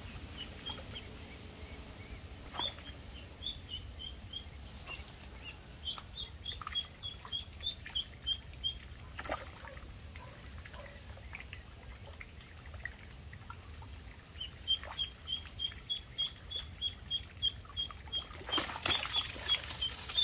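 A live-bait duckling peeping in long runs of short, high, evenly spaced chirps, about three a second, with a pause in the middle. Near the end a spell of hiss comes in as rain starts pattering on the water.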